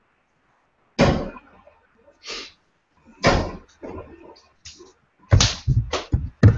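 Steel-tip darts thudding into a Winmau Blade 4 bristle dartboard: a sharp hit about a second in and another just past three seconds, then a quick run of knocks near the end.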